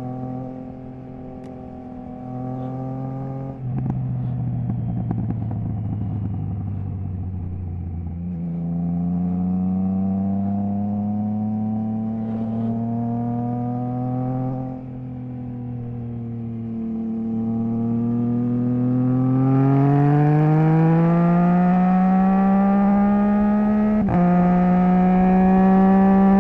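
Triumph Trident 660 inline three-cylinder engine through a Zard stainless full exhaust with the baffle removed, heard while riding. Its pitch falls as the bike slows, then rises under acceleration, dips, and climbs again, getting louder toward the end, with a brief sharp click near the end.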